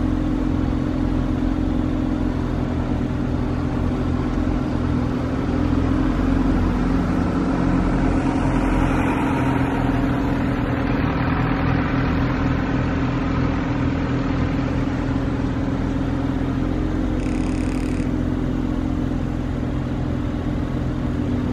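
Mercedes-AMG C43's 3.0-litre twin-turbo V6 with performance exhaust idling steadily, while the cabriolet's power soft top folds the roof down into the trunk in the first half. A short high-pitched tone about 17 seconds in.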